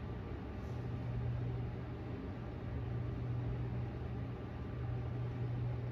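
Steady low hum with an even hiss: the background room tone of a large gym.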